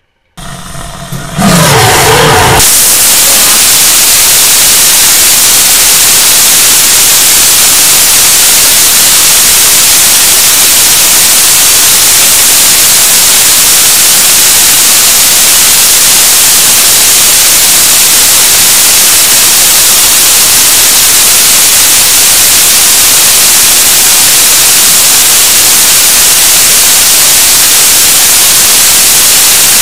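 BPM-5 rocket engine firing: it comes on abruptly about half a second in, builds over about two seconds, then runs as a steady, very loud rushing noise of the exhaust at full thrust.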